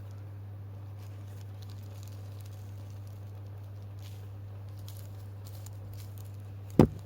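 Steady low hum with faint scattered ticks, and near the end a single short, sharp cough.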